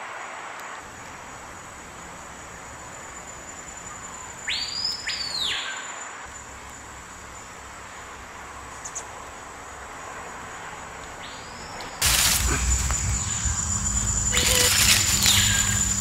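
Forest ambience: a steady high insect tone, with two rising-and-falling bird calls about four to five seconds in and a third near the end. From about twelve seconds, much louder rustling and handling noise takes over.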